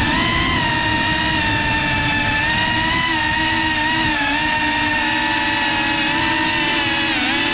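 GEPRC CineLog35 cinewhoop FPV drone's motors and ducted propellers whining steadily in flight. The pitch wavers with throttle and dips briefly near the end.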